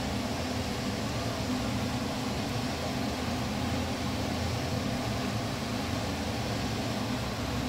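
Steady whirring hum of a ventilation fan, unchanging throughout.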